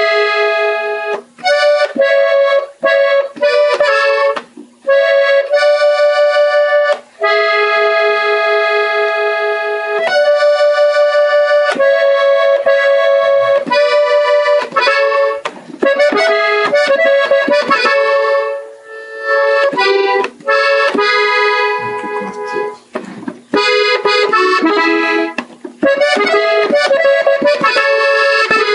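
Gabbanelli three-row button accordion playing a slow melody phrase by phrase, with held notes and short breaks between phrases.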